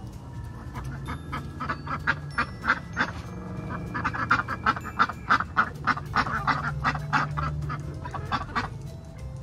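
Chickens calling in a fast run of short, loud calls, about three a second, thickest in the middle.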